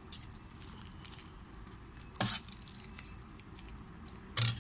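Dishes and utensils handled while serving soup: three short noisy sounds, about two seconds apart, the last the loudest, over a faint steady background.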